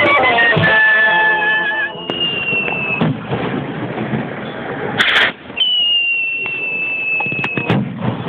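Music fades out about two seconds in. Then fiesta skyrockets (cohetes): a long whistle falling slightly in pitch, a sharp bang about five seconds in, and a second long whistle that ends in a crack near the end.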